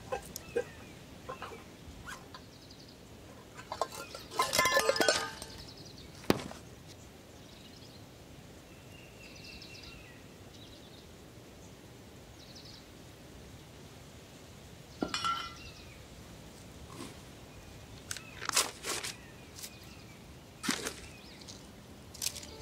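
Metal tin cans clinking and knocking together as they are handled and set down, with a loud run of ringing clinks about four seconds in and scattered single knocks later.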